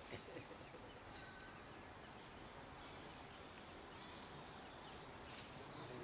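Near silence: a faint, steady outdoor background hiss, with a few faint, brief high peeps.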